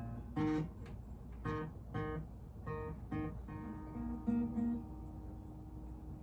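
Acoustic guitar strumming chords: five separate strums in the first three seconds or so, then a chord left ringing with a few notes picked over it.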